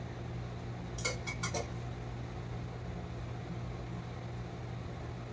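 Dishes and cutlery clinking at a meal table: a few light clicks and knocks about a second in, one ringing briefly, then only a steady low hum.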